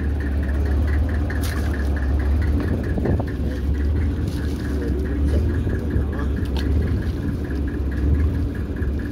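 A fishing boat's engine running steadily under way, a deep hum with a fast, even clatter over it, and a few short sharp clicks from handling on deck.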